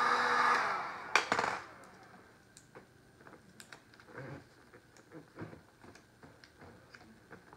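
Handheld heat gun blowing, then switched off, its fan winding down within the first second or so. Two sharp loud clicks follow. After that come faint rustling and small clicks of hands pulling the heat-softened covering sheet around the table-top corner.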